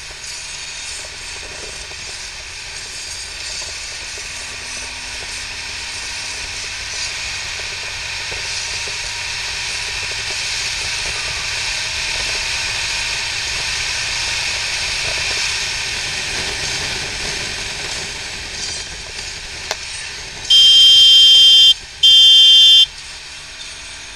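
Wind rush and the BMW R 1200 RT's boxer twin while riding, the wind noise swelling toward the middle and easing off again later. Near the end, two loud, steady high tones of about a second each sound one after the other.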